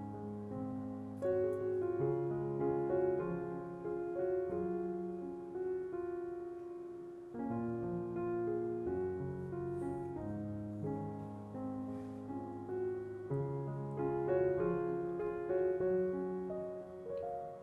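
Gentle background piano music, a slow melody over changing chords.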